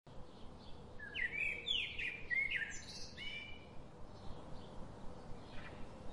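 Birds chirping, a run of quick rising and falling chirps in the first few seconds, then sparser ones, over a faint steady outdoor hiss and a low hum.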